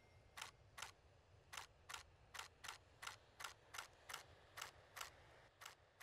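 Camera shutter clicking in a series of about thirteen single, sharp clicks, roughly three a second, with near silence between them.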